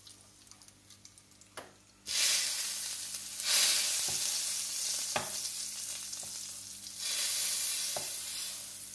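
Hot sesame-oil tempering of mustard seeds, urad dal and asafoetida poured from a small pan onto chutney, sizzling loudly as it hits. The sizzle starts suddenly about two seconds in, surges again a moment later, eases and rises once more near the end, with a spoon clicking against the pan as it scrapes the tempering out.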